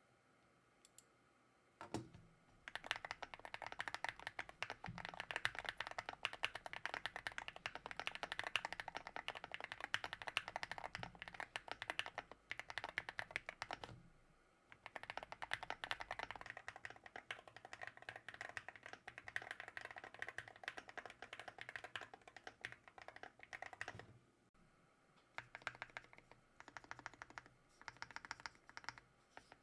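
Typing on a custom keyboard built on a Wooting 80HE Hall-effect PCB, with an FR4 plate and foam dampening in a GT-80 case: fast, continuous runs of keystrokes that stop briefly twice, then come back in shorter bursts near the end.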